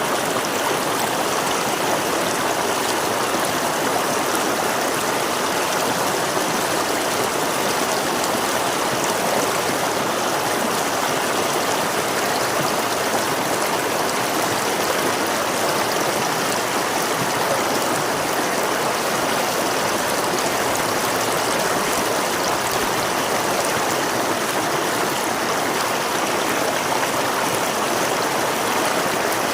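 River water flowing over rocks: a steady, even rush with fine gurgling and splashing.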